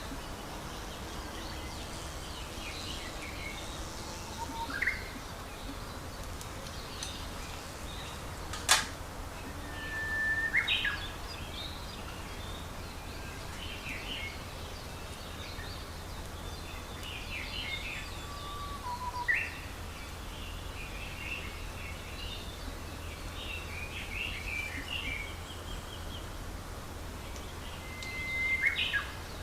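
Birds chirping and calling on and off over a steady low outdoor rumble, with one sharp click about nine seconds in and a few brief louder swells.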